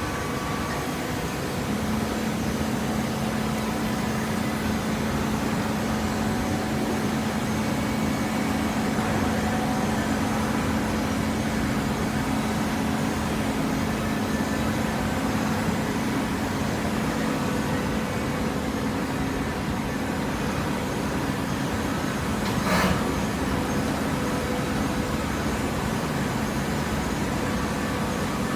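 Hydraulic waste paper baler running, a steady machine hum with a constant tone over a wash of mechanical noise. A single sharp knock sounds about 22 seconds in.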